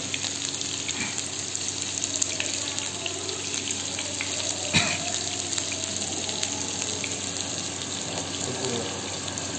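Sliced onions and green chillies sizzling steadily in hot oil in a frying pan, with a single sharp knock about halfway through.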